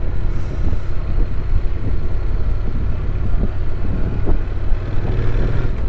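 Honda NC750X parallel-twin engine running steadily on the move, under a low, even wind rumble on the microphone.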